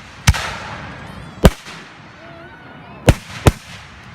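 Fireworks bursting overhead: four loud bangs, the last two close together near the end, each followed by a short hissing crackle.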